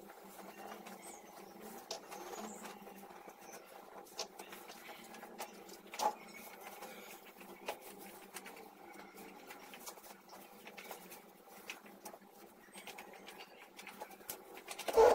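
Bedding rustling as a white duvet is spread, smoothed and tucked around a mattress, with scattered small clicks and scrapes and a louder knock near the end.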